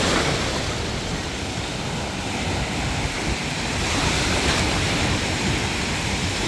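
Ocean waves and surf washing steadily, a continuous rushing with slight swells in level.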